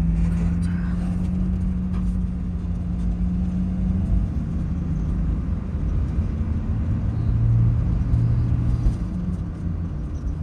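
Engine and road rumble heard from inside a motorhome's cab while driving. There is a steady engine hum that drops to a lower note after about four seconds.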